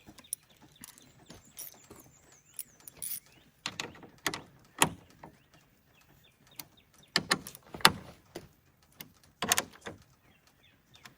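Irregular clicks and knocks of hand tools and fasteners being worked, as a truck camera's screws are checked and snugged by hand.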